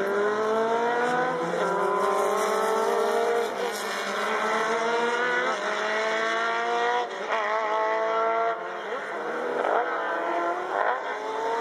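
Racing car engines accelerating hard. The engine note climbs and drops back with each gear change, about five times over.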